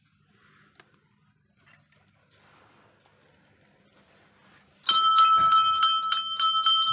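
A temple bell starts ringing about five seconds in, struck rapidly about five times a second, each strike leaving a clear metallic ring. Before that there is only faint rustling from the camera being handled.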